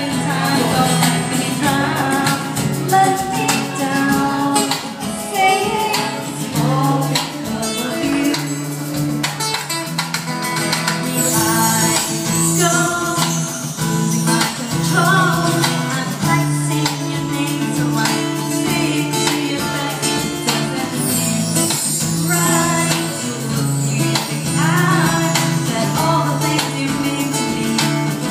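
Live acoustic band: a woman singing into a microphone over strummed acoustic guitar and steady hand percussion.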